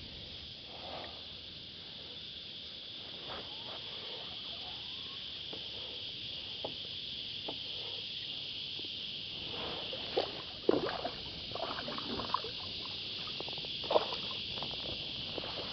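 Steady high-pitched chorus of cicadas in the trees. A few short knocks and clatters from handling gear on the kayak come mostly in the second half, the sharpest about ten seconds in and again near fourteen seconds.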